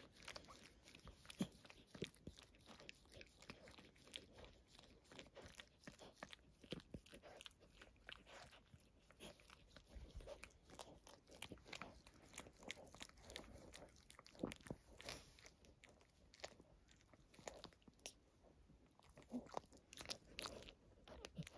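Faint, irregular wet clicks and smacks of a mother dog licking her newborn puppy to stimulate it.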